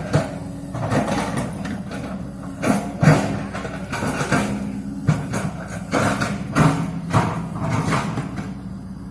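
A diesel engine running steadily, with irregular knocks and clanks over it, typical of heavy machinery working on an embankment repair.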